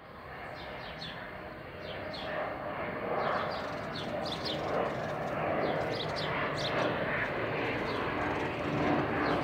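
Airplane engine approaching, a steady drone that grows louder, with birds chirping over it.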